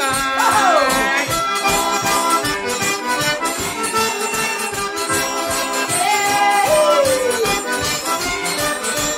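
Cajun music recording in an instrumental passage: a lead melody line with two long falling pitch slides, one shortly after the start and another about seven seconds in, over a steady beat.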